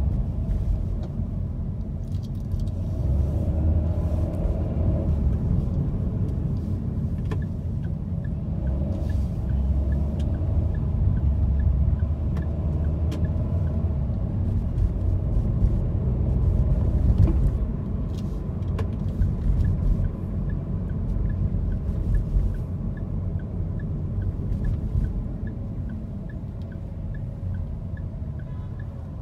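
Car cabin noise while driving in city traffic: a steady low engine and road rumble with light rattles. A turn signal ticks about twice a second in two stretches, from about a quarter of the way in to about halfway, and again from about three quarters in.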